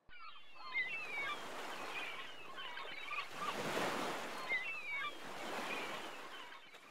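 Small waves washing on a bay shore, swelling and easing, with scattered high chirps over them. It starts suddenly and fades out near the end.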